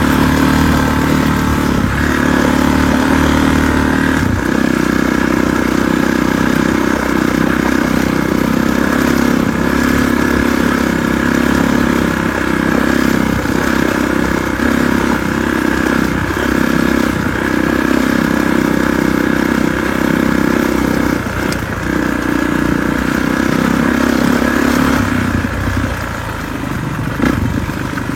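A 2019 Kawasaki KX450 dirt bike's four-stroke single-cylinder engine running steadily under way, heard from the bike, easing off slightly near the end.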